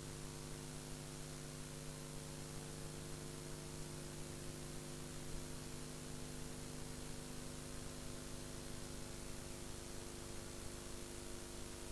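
Steady hiss with a low electrical hum from an old videotape recording, with no live sound on the track.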